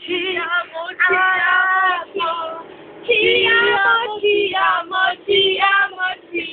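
Young women singing loudly in a drunken, unaccompanied way, with long held notes broken by short pauses.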